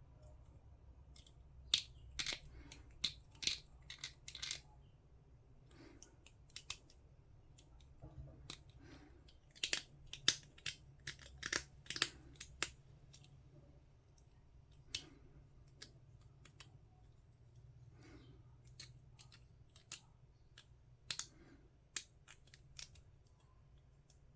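Sharp plastic clicks and snips in scattered clusters: hobby clippers and fingers working small plastic miniature parts.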